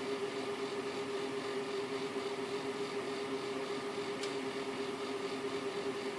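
Cooling fan of a Radeon HD 7950 graphics card running with a steady hum over an airy whir, and one brief tick about four seconds in. The owner finds the fan sound strange enough to report it for support.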